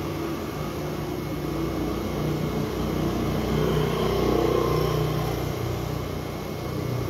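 A motor running steadily with a low hum, growing louder for a few seconds in the middle.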